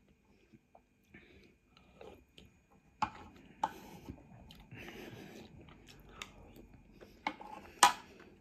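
A person chewing a mouthful of egg noodles close to the microphone, with a few sharp clicks, the loudest near the end.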